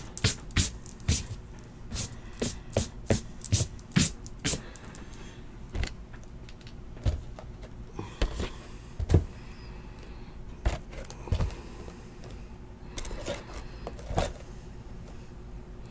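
Shrink-wrapped cardboard trading-card hobby boxes being handled and set down on a table: irregular knocks and scrapes, coming thick and fast in the first few seconds, then more sparsely.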